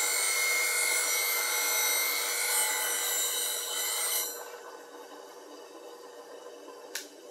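Bowl gouge being ground on a bench grinder wheel: a steady hiss of steel against the wheel over the grinder's hum. About four seconds in the hiss stops as the gouge is lifted off, leaving the grinder running more quietly, and a single sharp click comes near the end.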